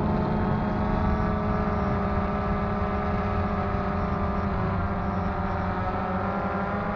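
DJI Phantom 2 quadcopter's four motors and propellers buzzing in flight, as heard from the action camera mounted on the drone. The hum is steady and carries many overtones, and its pitch wavers slightly in the second half.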